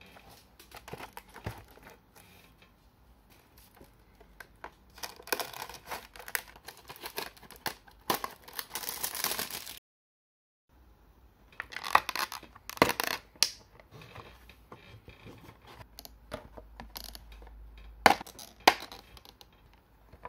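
Cardboard toy box and its vacuum-formed plastic tray being handled: rustling and scraping, with sharp clicks and snaps as parts are pried out of the plastic. The sound breaks off for about a second just before halfway.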